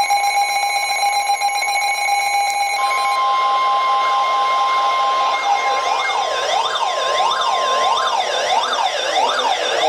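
Emergency alert tones from weather radio receivers: a steady electronic tone, then about three seconds in the NOAA Weather Radio 1050 Hz warning alarm tone starts, joined by a siren-like alarm sweeping up and down about every three quarters of a second. The steady alarm tone stops about eight seconds in while the sweeping alarm keeps going.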